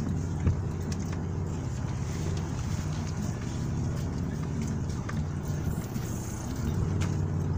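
Steady low rumble of a car engine running as the car rolls slowly, with a soft bump about half a second in.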